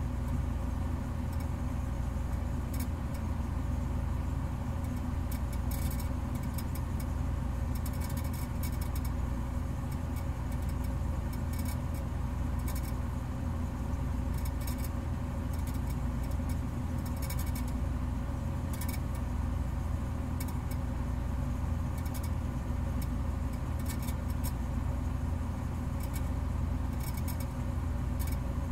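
A steady low mechanical hum with scattered faint high ticks.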